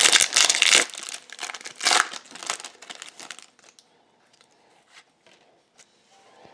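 Trading-card pack wrapper torn open and crinkled by hand, a dense crackling that stops about three and a half seconds in, followed by a few faint ticks.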